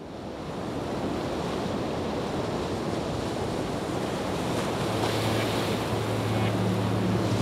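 A surf-like rush of noise fading in from silence and holding steady, with a low steady hum joining about four and a half seconds in: the opening of the intro soundtrack.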